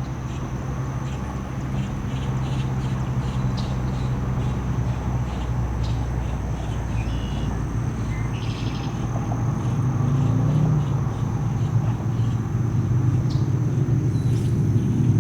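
Steady low motor hum that slowly grows louder, with scattered bird chirps and a thin high steady tone above it.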